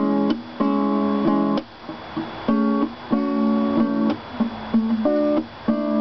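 Acoustic guitar strumming chords in a loose rhythm, the strums coming in short groups with brief pauses between them.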